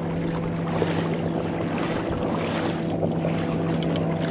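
Steady drone of a motorboat engine running on the lake, an unchanging hum with a few held tones, mixed with wind on the microphone.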